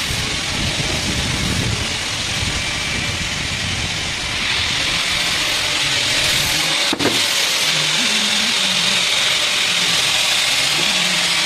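CNC lathe cutting a face groove with coolant spraying onto the spinning workpiece: a steady hiss over a low machine hum. A short click and dip come about seven seconds in, after which the hiss is a little louder.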